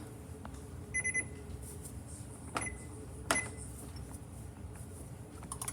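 Microwave oven keypad beeping: a quick run of short high beeps about a second in, then two sharp clicks, over the steady hum of the oven running.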